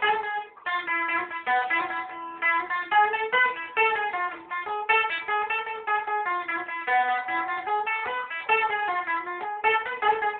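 Bulgarian tambura, a long-necked plucked lute, playing a fast melody of quickly picked notes.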